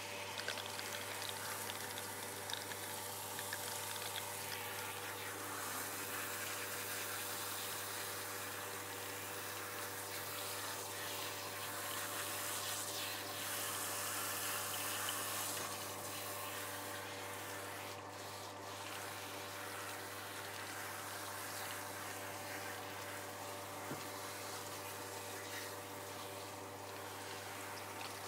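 Handheld shower head spraying water through a wet dog's coat and splashing onto the floor of a grooming bath, rinsing out conditioner: a steady rush of water with a steady low hum underneath.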